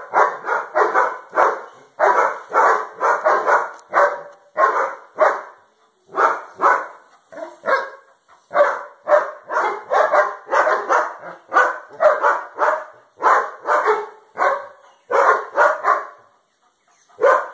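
German shepherd barking hard and fast, about two to three barks a second in volleys with short pauses. The barking stops shortly before the end, and one last bark follows.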